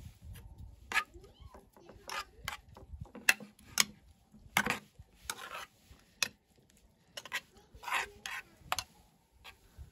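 Metal spoon scraping and clinking against a small stainless steel bowl as food is stirred, in irregular strokes with a few longer scrapes.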